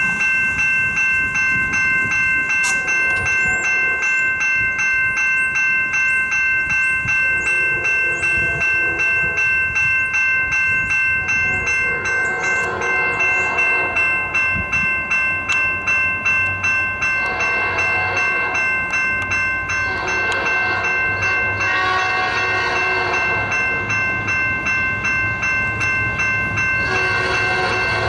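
Railroad crossing signal bell ringing at about two strokes a second. From about eight seconds in, an approaching locomotive's horn joins it with several long blasts, the last one starting near the end.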